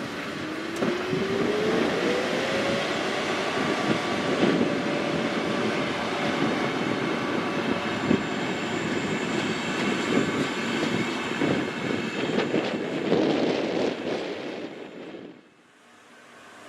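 An electric train running through a station: a dense rumble and clatter of wheels on rails, with a whine that rises in pitch over the first few seconds and then holds steady. The sound drops away sharply about 15 seconds in.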